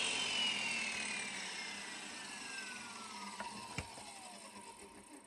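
Ridgid table saw's motor and blade spinning down after being switched off: a whine falling steadily in pitch and fading away, with two light knocks near the end.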